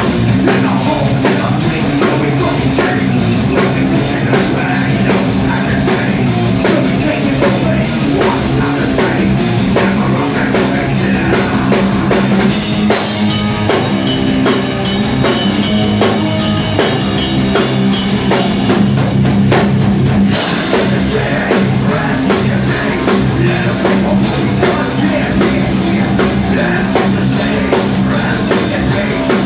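Live heavy rock band playing loud, with drum kit, electric guitars and keyboard. For several seconds in the middle the cymbals drop out and the drum hits stand out sharply.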